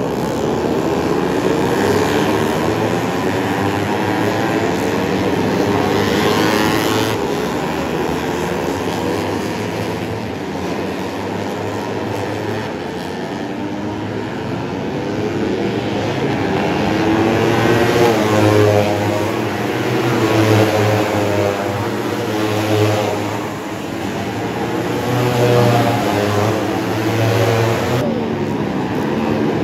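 Several 150cc four-stroke underbone racing motorcycles running hard in a pack, their engine notes overlapping and rising and falling as the bikes rev, shift and pass.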